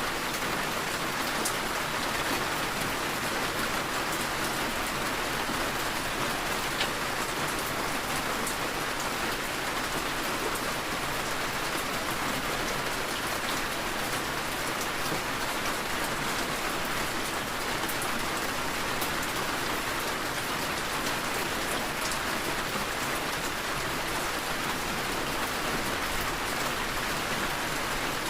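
Steady rain falling, an even patter with scattered sharper drop ticks.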